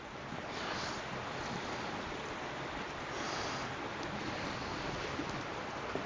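Steady rushing noise with no speech, growing a little louder about half a second in.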